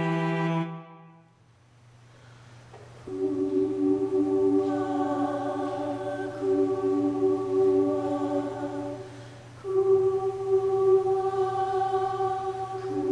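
Instrumental intro music fades out in the first second, and after a brief quiet stretch with a faint low hum, a small women's chorus begins singing held chords about three seconds in, breaking off briefly near the end before going on.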